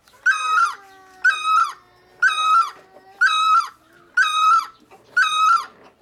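Great barbet calling: a short, ringing call repeated evenly about once a second, six times over. Fainter, long, slowly falling tones sound underneath the first few calls.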